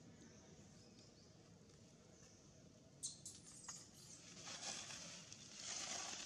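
Faint background at first. From about three seconds in, dry leaves crackle and rustle as monkeys move over leaf litter, with a few sharp crackles and then a longer rustle that gets louder toward the end.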